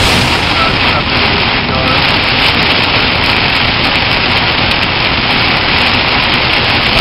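Heavy rain hitting a car, heard from inside the moving car as a loud, steady, static-like hiss.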